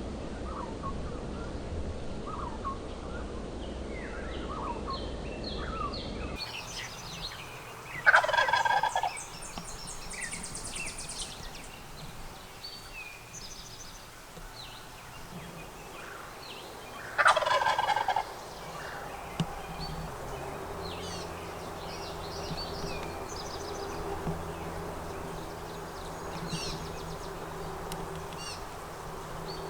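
Wild turkey gobbler gobbling twice, each gobble a loud rattling call lasting about a second, the two roughly nine seconds apart. Small songbirds chirp throughout, and a faint steady hum comes in about two-thirds of the way through.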